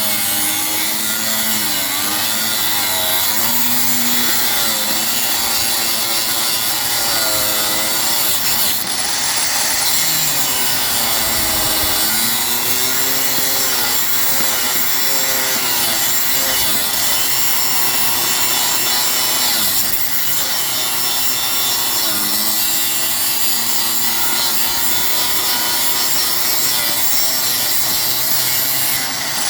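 Angle grinder cutting L brackets: a loud, continuous grinding with the motor's whine wavering up and down in pitch as the cut goes on.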